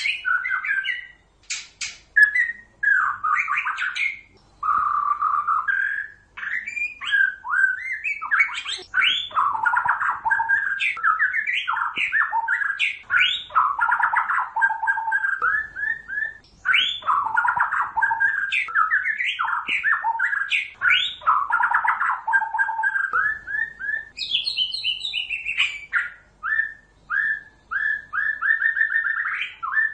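White-rumped shama singing: a near-continuous string of fast, varied whistled phrases with rapid repeated notes and rising and falling sweeps, broken by a few short pauses.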